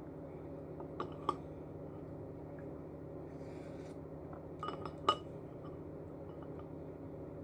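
Utensils clinking against a bowl or glass while eating noodles: two pairs of short ringing clinks, about a second in and about five seconds in, the last the loudest.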